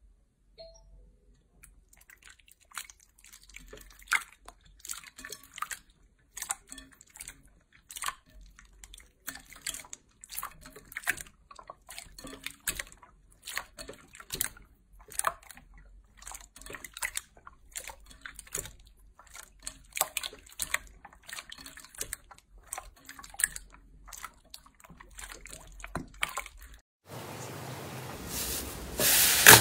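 Clear slime squeezed and kneaded by hand, making wet, sticky clicks and pops at an irregular rate of several a second. About 27 seconds in it changes to a steady hiss with louder crackling as a hand presses into thick pink slime.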